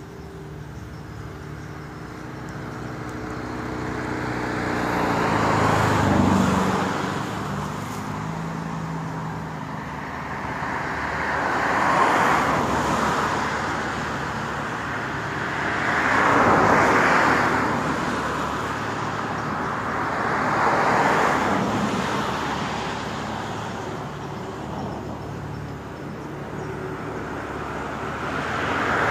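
Road traffic: several vehicles passing one after another, each swelling and fading over a few seconds. An engine's hum drops in pitch about five seconds in.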